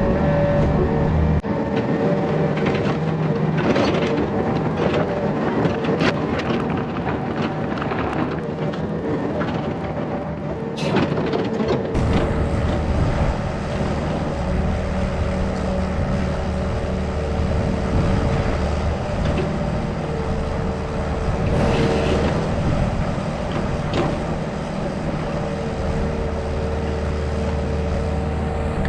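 Yanmar ViO50 mini excavator's diesel engine running steadily under load while it digs, with scattered sharp knocks and cracks as the bucket cuts through large tree roots. The low rumble grows heavier about twelve seconds in.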